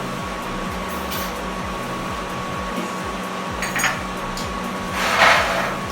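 Steady electric fan hum with a constant tone, broken by a few short knocks and a brief louder noise about five seconds in.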